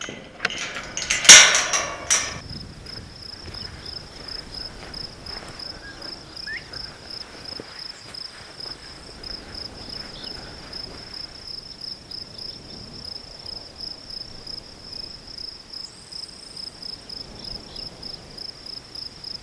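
A farm gate clatters with a few loud metal knocks as it is unlatched and opened, about a second in. Then an insect chirps in a steady, rapid, high-pitched pulse.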